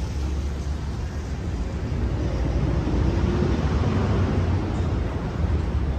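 Street traffic: a vehicle passes close by, swelling to its loudest a few seconds in and then fading, over a steady low rumble.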